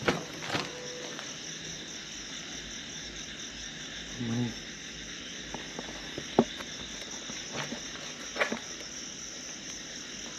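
Crickets chirring in a steady, high continuous chorus. Over it come a few sharp clicks, the loudest about six seconds in, and a brief low murmur about four seconds in.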